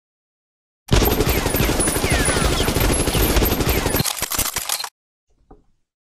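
Gunfire sound effect: several automatic guns firing at once in a dense, rapid volley that thins to scattered shots near the end and cuts off abruptly.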